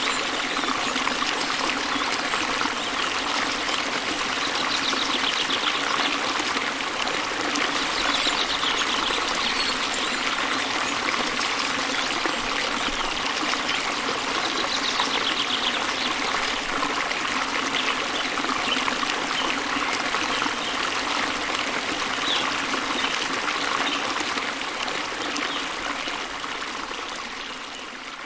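Waterfall water running and splashing steadily, fading out over the last few seconds.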